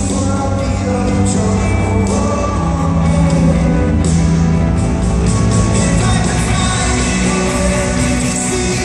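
Rock band playing live, a singing voice over the band, with sharp cymbal hits now and then.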